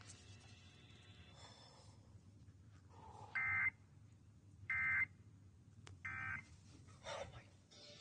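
Three short bursts of Emergency Alert System digital data tones, the screechy End-of-Message signal that closes an alert, played through a small retro-style radio speaker. The bursts come about a second apart, starting a few seconds in.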